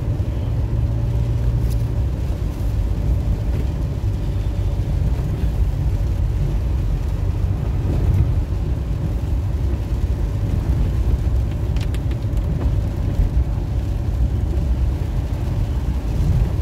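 Mitsubishi Shogun 4x4 driving on a wet, flooded road, heard from inside the cabin: a steady low engine and tyre rumble. It swells briefly about eight seconds in as spray is thrown up from standing water.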